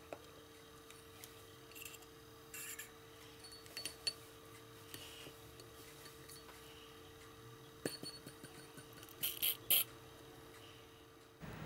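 Syringe flushing fluid through a rear windscreen washer nozzle held under liquid in a drinking glass, to clear a blocked nozzle. There are small clinks of plastic on glass and short spurts of bubbling, three of them close together near the end, over a faint steady hum.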